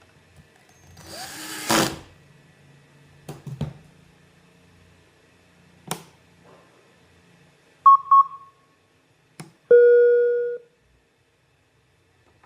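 A few handling clicks and a brief scrape, then a portable Bluetooth speaker gives two quick high beeps followed by one longer, lower tone that fades out, as when the speaker is switched on after its battery replacement.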